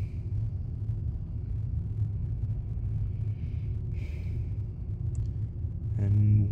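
Car driving: a steady low rumble of engine and road noise. Near the end a man's voice starts up over it.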